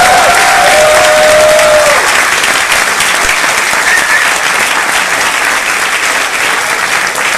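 Audience clapping and cheering, with a few held whoops over the first two seconds, then steady applause.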